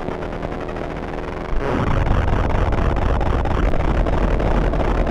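Otamatone Deluxe played through effects, giving a harsh electronic noise. About one and a half seconds in it jumps abruptly louder into a dense, rumbling wall of distorted noise.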